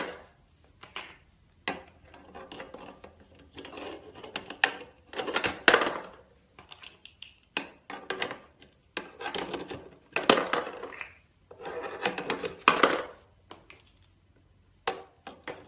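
Plastic shape-sorter blocks clacking and knocking against the toy's plastic lid and dropping through its holes as a green parrot works them in with its beak. The clicks and clacks come in irregular clusters.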